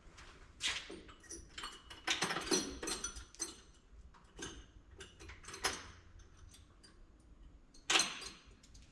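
Steel punches clinking and rattling as they are picked up and handled, a string of light metallic clicks with a faint ring. The busiest clatter comes about two to three seconds in, and the sharpest clink near the end.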